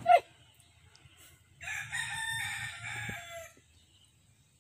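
A rooster crowing once, a drawn-out call of about two seconds that ends in a falling tail.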